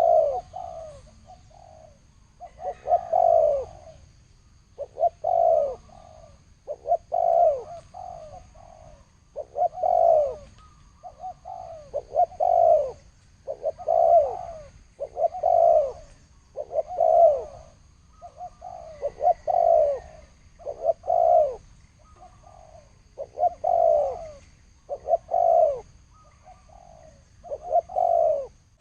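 Spotted dove (chim cu gáy) of the deep 'thổ sấm' voice type cooing over and over, with a short falling coo phrase about every two seconds.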